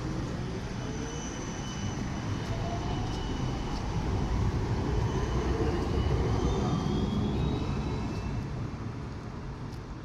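Siemens Combino Plus light-rail tram passing close by, its electric traction drive whining in tones that slide in pitch. The sound swells to a peak around the middle and fades toward the end.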